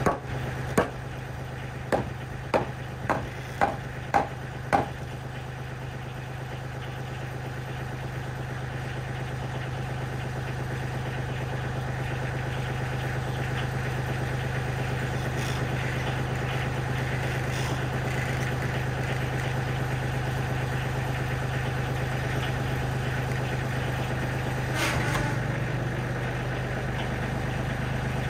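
Kioti CK30 compact diesel tractor idling steadily. Seven sharp knocks, like hammer blows, come about half a second apart in the first five seconds, and about 25 seconds in there is a brief louder rush as the engine note lifts slightly.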